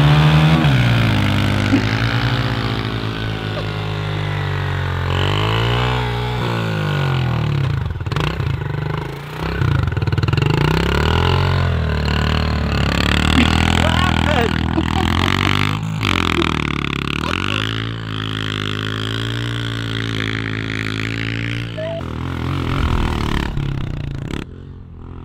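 Motocross dirt bike engine revving up through the gears and backing off again and again as it is ridden around the track. The engine sound drops away suddenly about a second before the end.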